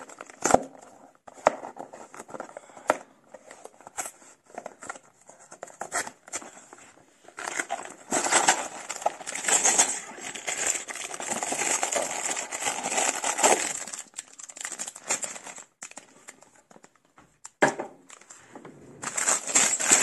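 Cardboard box being opened, with scattered short clicks and scrapes, then sealed plastic LEGO parts bags crinkling as they are pulled out and handled, densest in the middle and again near the end.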